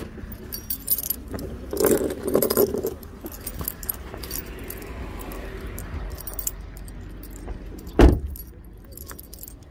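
Handling noise of a phone camera and plastic juice bottles being carried out of a car, a run of small clicks and rattles. About eight seconds in comes a single loud thump of a car door being shut.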